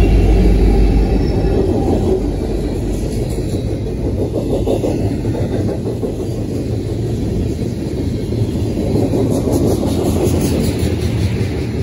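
Freight train passing close by: a diesel locomotive's engine rumble at the start, easing after about a second as tank cars follow with a steady rolling rumble of steel wheels on rail. Rhythmic clicking of wheels over rail joints is clearest near the end.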